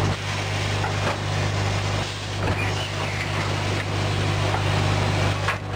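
Cat-litter bag-filling packing machine running: a steady mechanical din with a strong low hum, and a few light knocks.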